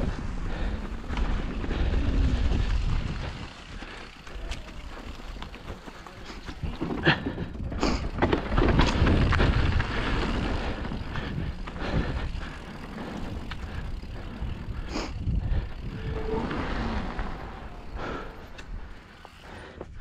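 Mountain bike riding down rough grass and a dirt trail: a steady rumble of wind buffeting the microphone over the noise of tyres on the ground, with sharp knocks and rattles from the bike over bumps, busiest about halfway through.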